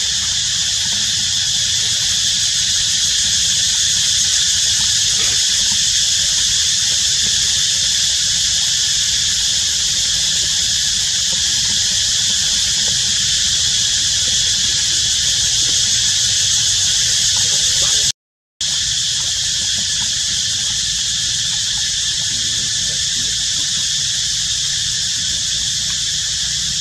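Steady, high-pitched drone of an insect chorus, unbroken except for a brief dropout about eighteen seconds in.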